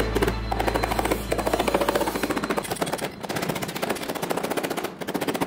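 Fast run of metal-on-metal strikes on a car's sheet-metal body panel during collision repair, many a second and hardly a break between them.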